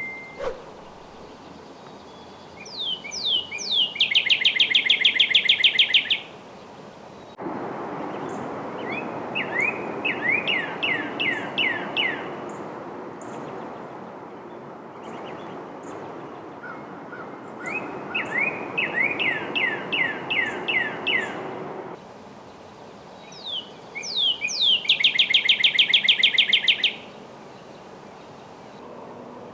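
Northern cardinal singing: four song phrases, each opening with a few down-slurred whistles and running into a fast series of repeated notes. A steady rushing noise sits under the middle two phrases.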